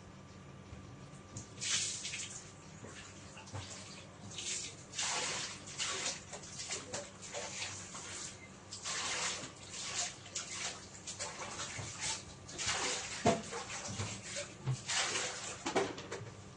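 A sleeping person snoring, with noisy, hissing breaths about every three to four seconds.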